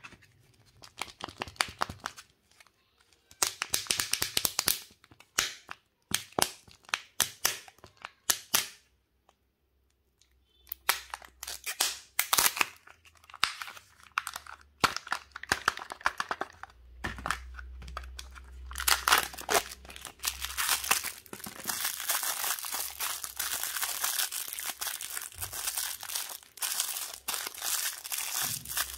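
Plastic candy-egg packaging being handled and unwrapped: sharp crinkling and tearing of plastic wrappers and foil, in clusters of crackles. It pauses briefly about nine seconds in, then crinkles almost without a break through the second half.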